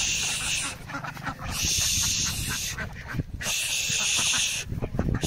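Ducks at the water's edge, over a high hissing buzz about a second long that comes and goes roughly every two seconds.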